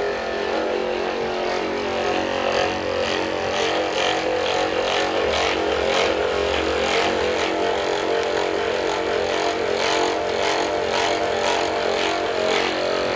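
Handheld electric massager running steadily: a constant motor buzz with a fainter rapping a couple of times a second.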